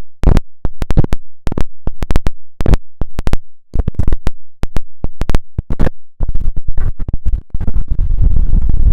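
Handling noise on a small smartphone shotgun microphone as its wind muff is pulled off and swapped: loud irregular scratching, rubbing and clicking right on the capsule. About six seconds in it turns into a continuous low rumble with crackling.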